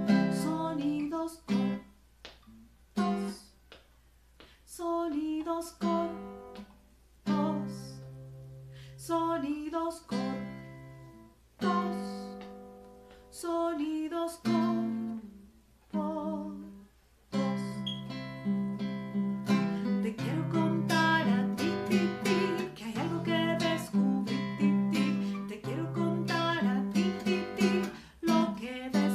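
Nylon-string classical guitar played with single plucked notes and chords. Some are cut off short and others are left to ring and fade, as examples of short and long sounds. From about two-thirds of the way in, the playing becomes steadier and fuller, with a woman singing along.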